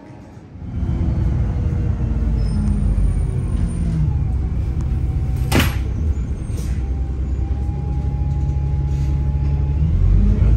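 Airbus A320 cabin noise: a loud, steady low rumble of engines and airframe with several steady engine tones, setting in abruptly under a second in. A single sharp knock comes about five and a half seconds in.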